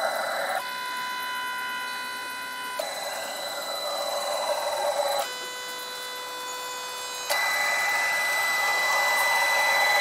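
Stepper motors of a homemade CNC router whining as the machine homes its axes. The pitch set changes abruptly about four times as one axis move stops and the next begins, and the tone slides down during some moves.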